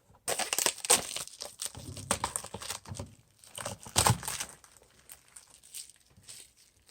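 A Funko Mystery Minis blind box being torn open by hand: packaging crinkling and tearing in dense bursts, loudest in the first four seconds and then trailing off into scattered rustles.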